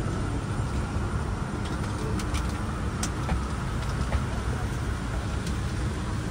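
Steady low rumble with an even hiss from a jet airliner on the ground, with a few faint clicks.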